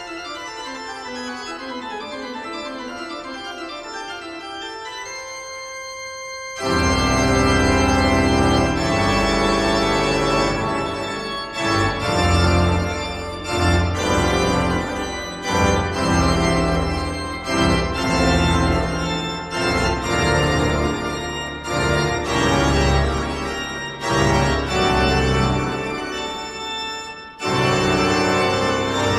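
Organ music: a quieter passage of held chords gives way about seven seconds in to a loud, full passage with heavy bass and swelling chords, which breaks off briefly near the end.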